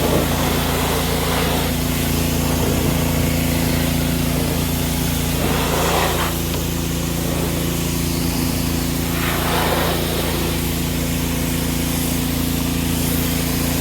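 Pressure washer running: its motor hums steadily under the constant hiss of the high-pressure water jet. The hiss swells briefly a few times as the spray sweeps across surfaces.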